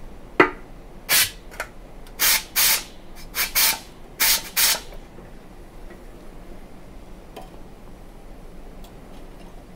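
A sharp click, then about seven short hissing spray blasts in quick pairs, aimed into the fuel line of a Subaru SP170 pressure-washer engine to clear a fuel flow that only drips.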